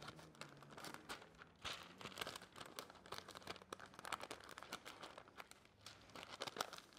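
Sheet of baking paper crinkling and rustling as it is folded and tucked in around the edges of a baking dish: a faint run of small crackles.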